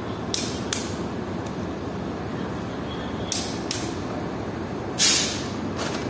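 Wrench clicking on the connecting-rod cap bolts of a MAN engine as they are tightened to the 100 Nm plus 90-degree rod-bolt spec. There are two pairs of short metallic clicks, then a louder sharp click about five seconds in and another just before the end, over steady workshop background noise.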